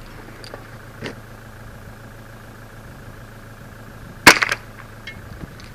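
A single shot from a Kriss Defiance DMK22C .22 rifle: one sharp crack about four seconds in, with a brief echo after it.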